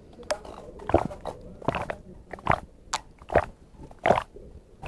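A person gulping water from a plastic bottle, with a series of swallows a little more than one a second.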